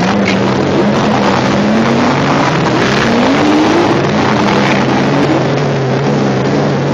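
Lamborghini engines running loud, with a rev that rises in pitch about two to three seconds in, then settling to a steady low drone.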